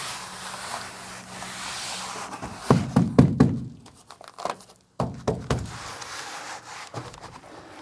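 Hands working in a pickup truck bed: rubbing and handling noise, with a cluster of loud knocks about three seconds in and a few lighter taps later.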